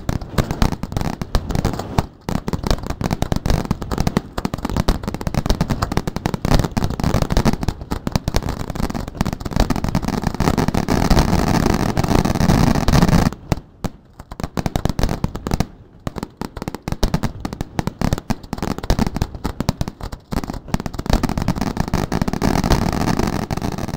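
Fireworks display: a dense, continuous barrage of shells bursting and crackling, with a brief lull a little past halfway before the barrage picks up again.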